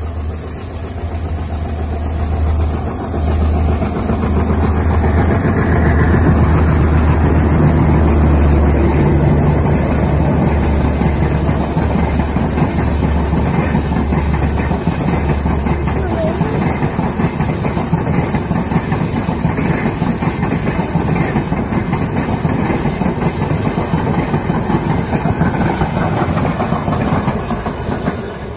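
Passenger train running past on the rails: a loud, steady rumble and clatter of wheels and coaches, over a low drone that stops about sixteen seconds in.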